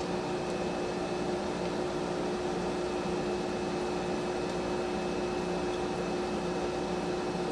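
Home central air conditioner running with its compressor on: a steady hum with a constant droning tone.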